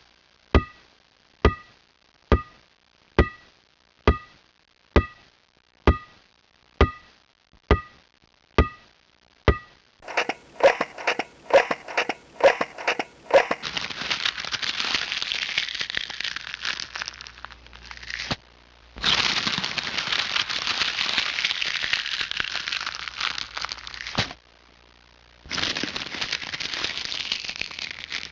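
A string of sound effects. First a ball bouncing, about once a second with a short ringing tone on each bounce, for about ten seconds. Then a few seconds of rapid clicking, then paper being crumpled in three long spells with short gaps between them.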